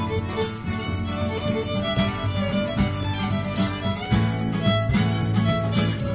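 Bluegrass band playing an instrumental passage, fiddle carrying the lead over guitar accompaniment.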